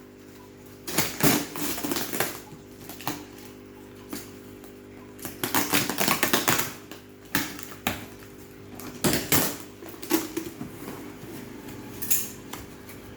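Purchases being unpacked and handled: clusters of rapid clattering and rustling, loudest about 1 to 2 seconds in, again around 6 seconds and around 9 seconds, over a steady low hum.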